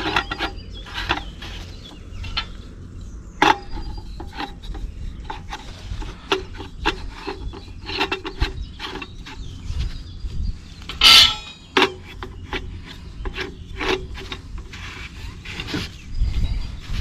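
Plastic and metal parts of a portable camping gas grill being handled and fitted together: repeated clicks, knocks and scraping rubs, with one louder clack about eleven seconds in.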